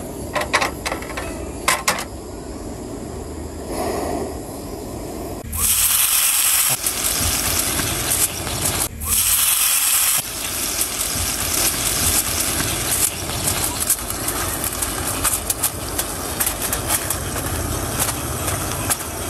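Water poured into a hot cast iron skillet hisses and sizzles loudly as it flashes to steam, starting suddenly about a third of the way in. It is followed by a steadier sizzle with the crinkling of aluminium foil being pressed over the pan near the end.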